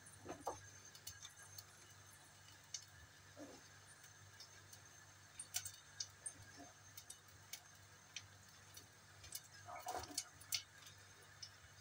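Faint, irregular clicks and soft taps of a small kitchen knife slicing mushrooms held in the hand, over a low steady hum.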